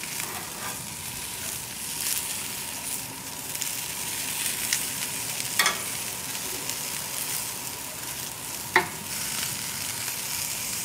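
Vegetables sizzling on a hot grill grate, a steady hiss, with two sharp metal clicks from a utensil against the grate, a little past halfway and again about three seconds later.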